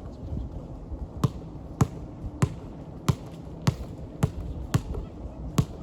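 Basketball being dribbled on a hard court: eight sharp, even bounces, a little under two a second, starting about a second in.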